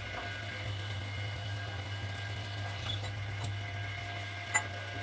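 Steady low electrical hum of a running workshop machine, with faint steady high whine tones, and one sharp metallic click near the end.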